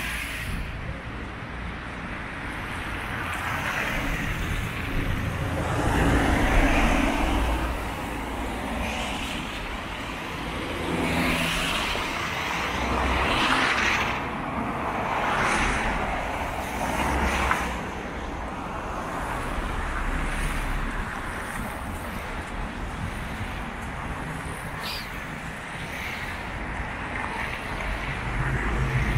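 Road traffic on a wet city street: several cars pass one after another, each swelling and fading, their tyres hissing on the wet asphalt over a steady low rumble.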